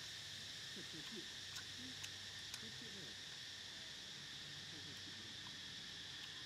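Steady high-pitched chirring of insects, with a few faint ticks about two seconds in.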